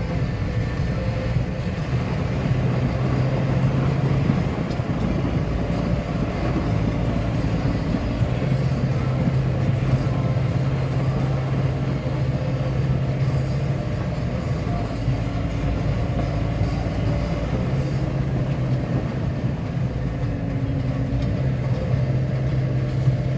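Tractor engine running steadily while ploughing snow. Its low hum grows stronger and eases off several times as the load changes.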